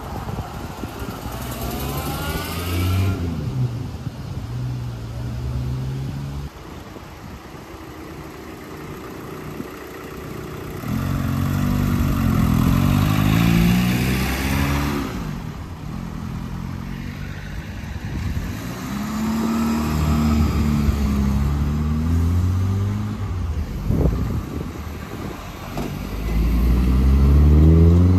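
Cars pulling out one after another and accelerating away, among them a classic Rover P4 saloon and Mk1 Volkswagen Caddy pickups. Each engine note climbs as it revs up and drops again as it passes. There are about four passes, and the last, near the end, is the loudest.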